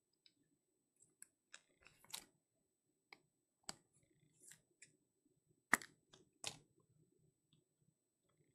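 Trading cards handled and sorted by hand on a table: faint, scattered light clicks and scrapes, with two sharper clicks a little past halfway.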